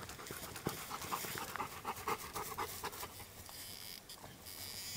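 Dog panting in quick, even breaths, about four to five a second, easing off after about three seconds.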